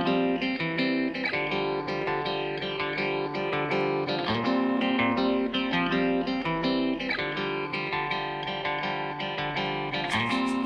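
Background music led by guitar, plucked and strummed chords with a steady pulse.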